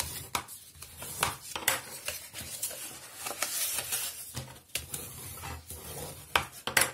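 Pink cardstock being folded along its score lines and pressed flat with a bone folder: paper rustling and the folder scraping along the creases. Several sharp clicks and taps come through, the loudest near the end.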